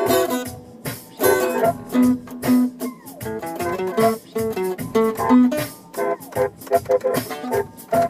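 Guitar played solo, a melody of plucked notes that ring and fade one after another, with a few notes sliding in pitch.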